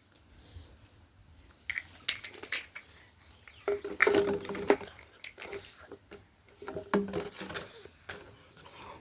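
Close-up hand sounds of lice picking in hair: a run of sharp clicks, crackles and rustles. A short low hum comes twice, about four and seven seconds in.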